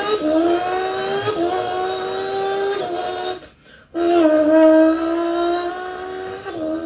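A person imitating an accelerating car engine with the mouth: a buzzing drone whose pitch climbs and then holds, stepping up twice like gear changes, broken by a short pause for breath about three and a half seconds in.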